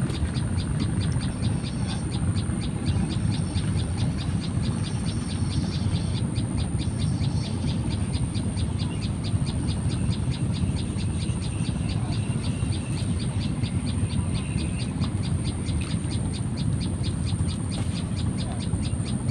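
Low, uneven rumble of wind buffeting the microphone on an open riverbank. A faint steady high-pitched whine and a fast, even ticking run above it.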